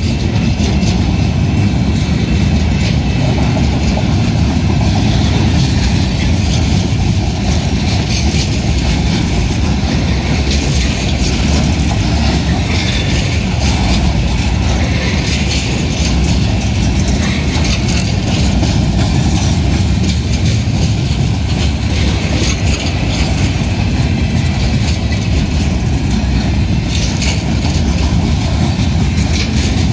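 Freight train rolling steadily past close by: flatcars and covered steel-coil cars, their wheels rumbling on the rails.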